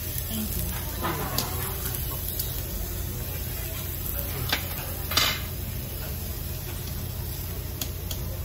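Meat sizzling on a tabletop Korean barbecue grill, with scattered clicks and clinks of utensils, the sharpest about five seconds in.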